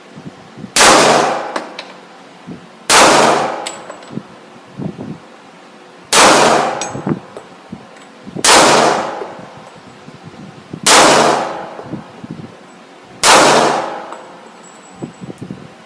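Six single gunshots fired two to three seconds apart, each followed by a ringing echo that dies away over about a second.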